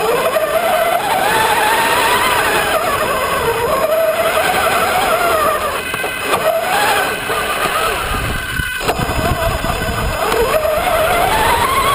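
Traxxas Summit RC truck's electric motor and drivetrain whining as it drives, the pitch rising and falling with the throttle. The whine drops out briefly about nine seconds in, and a low rumble runs under it from then on.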